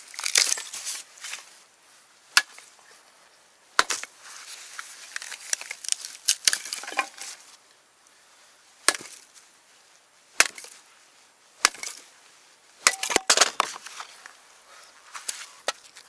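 Gränsfors Bruks axe chopping and splitting hardwood firewood: about seven sharp, separate strikes spaced one to several seconds apart, with splintering and crackling of the wood around them.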